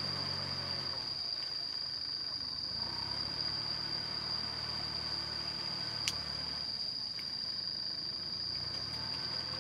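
Small Kubota diesel tractor running steadily at low revs as it pulls cage wheels through a flooded rice paddy. A steady high-pitched whine sits over it, and there is a single sharp click about six seconds in.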